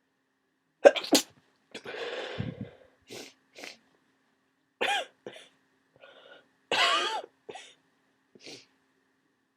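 A person with a cold coughing and sneezing in a series of short bursts. The loudest is a sharp double burst about a second in, followed by a longer noisy breath and several more bursts, two of them louder and voiced.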